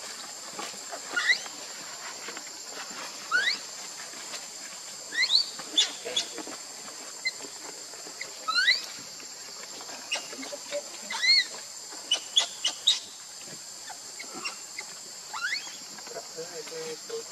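Baby macaque crying in a dozen or so short, sharply rising squeals, coming irregularly one every second or two, over a steady high buzz of insects.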